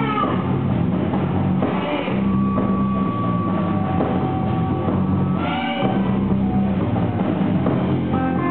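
Rock music playing, with drum kit and electric guitar.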